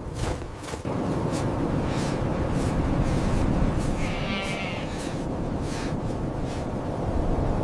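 A sheep bleats once, a short wavering call about four seconds in, over a steady low rush of wind. Short soft crunch-like taps repeat roughly every half second.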